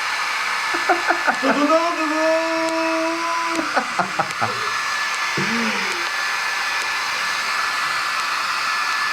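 Electric hair dryer blowing steadily, a constant airy rush with a thin steady whine. A person's voice holds one long note about two seconds in, and gives a short vocal sound a little after five seconds.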